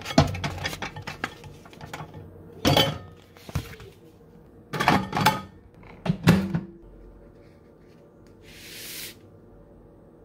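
A plate being handled at a microwave oven: a run of small clicks, then several loud separate knocks and clatters, and a short hiss near the end.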